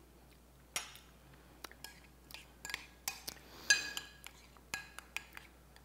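A spoon clinking and scraping against a bowl while stirring a sauce: scattered light clinks, a few of them ringing briefly.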